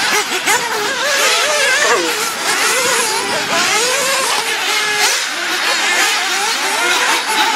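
Several nitro RC buggies racing together. Their small two-stroke glow-fuel engines rev up and down continuously in overlapping high-pitched whines as the cars accelerate and brake around the track.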